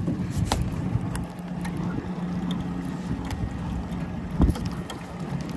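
Boat motor running steadily at trolling speed, a low hum with wind buffeting the microphone. A few sharp clicks and one louder thump about four seconds in come from handling the baitcasting reel and rod.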